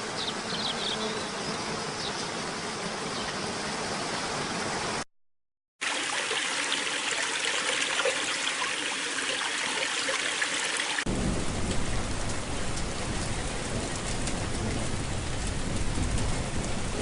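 Waterfall, a steady rush of falling water. It cuts out for under a second about five seconds in, then comes back, and turns deeper and more rumbling at about eleven seconds in.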